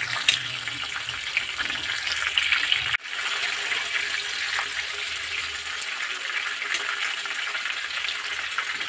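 Whole fish sizzling and crackling steadily as they shallow-fry in hot oil in a nonstick pan, with a brief break about three seconds in.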